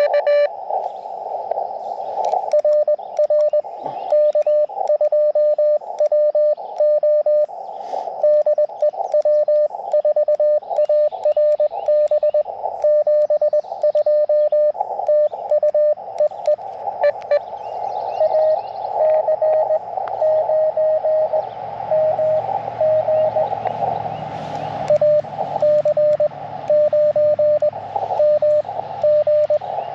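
Morse code from an Elecraft KX2 transceiver's audio: a tone keyed in rapid dots and dashes over a narrow band of steady receiver hiss. For a few seconds in the middle, a slightly higher and weaker signal is keyed instead.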